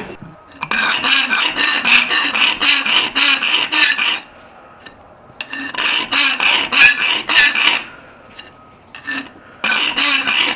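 Round file rasping back and forth across the edge of a brass plate clamped in a bench vise. It goes at about four strokes a second, in three runs with short pauses between.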